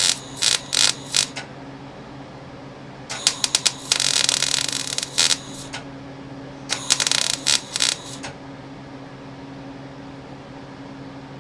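Hand socket ratchet clicking in three bursts of rapid strokes, the middle burst the longest, with a stretch of fast continuous ratcheting.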